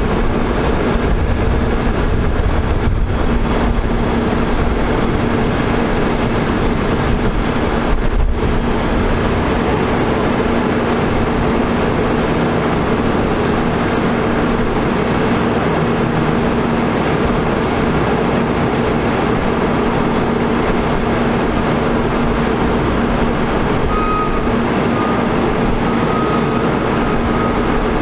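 Diesel engine of a 2002 International 4900 digger derrick truck running steadily at constant speed, driving the Terex Telelect Commander 6000's hydraulics as the boom is raised, retracted and lowered. It is a steady hum with a constant tone, and a faint higher whine comes and goes near the end.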